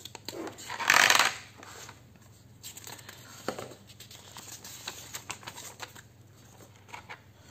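Charger box and its packaging being handled during unboxing: a loud rustle about a second in, then scattered light clicks and taps as the contents are taken out.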